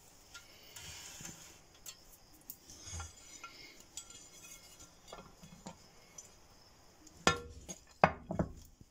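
A ceramic plate and a silicone cake mould being handled: soft knocks and rubbing, then a few sharp clatters near the end as the mould is flipped over onto the plate and set down, turning the cake out.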